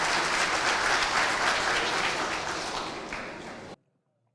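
An audience applauding steadily, fading out just before the end and cutting to silence.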